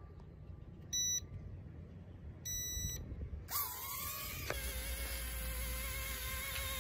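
Mini toy quadcopter: two short electronic beeps, then from about halfway through a steady high whine with a slightly wavering pitch as its small propellers spin.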